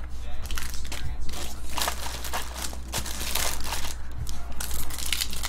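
Foil wrapper of a trading card pack crinkling and tearing as the pack is opened by hand, in a series of crackly rustles with a short pause about four seconds in. A low steady hum runs underneath.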